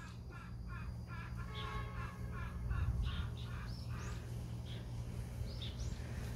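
A quick run of short, high chirping animal calls, several a second, thinning out over the last few seconds.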